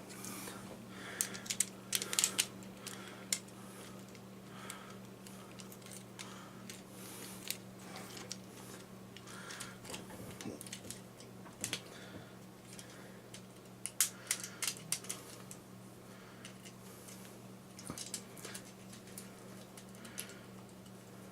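Scattered, irregular small plastic clicks and taps from a Transformers Studio Series Stinger deluxe figure's joints and parts being moved by hand during transformation, in a few clusters, over a faint steady low hum.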